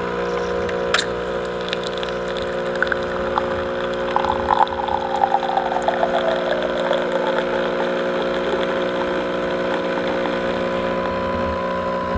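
Nescafe Dolce Gusto Genio S+ capsule machine pumping hot water through a milk capsule, a steady pump hum. A sharp click comes about a second in, and a sputtering hiss of milk dispensing falls in pitch from about four to seven seconds in.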